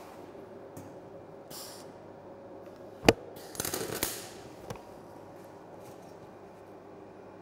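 MIG welding torch laying a short tack weld on steel angle: a sharp crack as the arc strikes, about a second of spattering crackle, then a single click.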